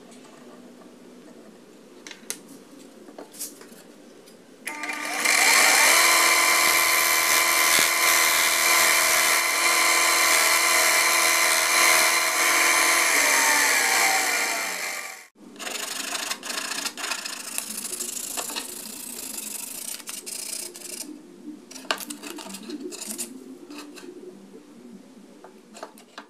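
Electric combination bench grinder and belt sander switched on about five seconds in, running steadily for about eight seconds, then switched off, its pitch falling as it winds down to a stop. Before and after it, lighter clicks and rustling.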